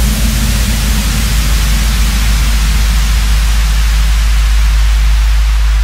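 Loud, steady hiss of white noise, like static, over a deep constant rumble, unchanging throughout.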